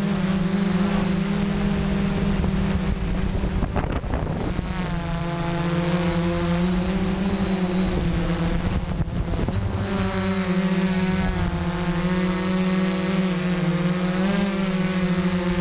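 DJI F550 hexacopter's six electric motors and propellers humming steadily, heard from on board, the pitch wavering as it manoeuvres. Wind rumbles on the microphone about four seconds in and again around nine seconds.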